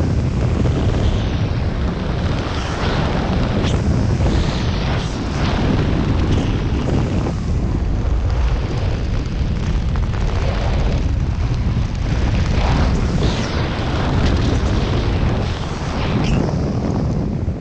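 Wind buffeting the microphone of a camera worn under an open parachute during the descent: a loud, deep rumble that swells and dips irregularly.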